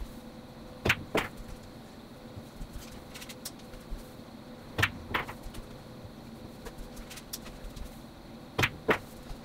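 Pool balls clicking in three stop shots, about four seconds apart: each is a pair of sharp clicks, the cue tip striking the cue ball and then the cue ball hitting the object ball.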